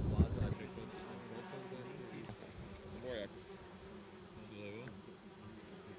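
Flies buzzing around the microphone in a faint, wavering drone, after a brief low rumble at the very start.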